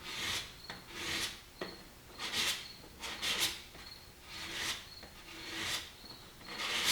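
Single-bevel broadhead's steel blade drawn stroke by stroke across corrugated cardboard, a short rasping swish about once a second. This is stropping: honing the edge after the sharpening stones.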